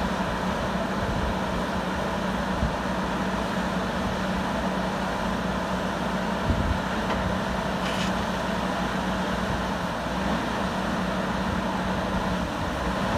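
Steady drone of heavy machinery running, with a constant low hum. There is a low thump about six and a half seconds in and a faint metallic click about eight seconds in.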